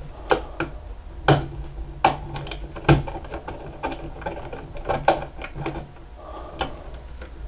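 Irregular small clicks and taps of a small flathead screwdriver and fingers working a relay terminal screw as a wire is clamped into a controller's terminal block, over a low steady hum.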